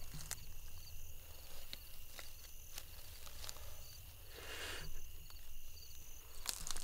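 Insects chirping steadily in the field, with small crackles and one short rustle of dry corn stalks and leaves about four and a half seconds in as a deer is dragged over the stubble.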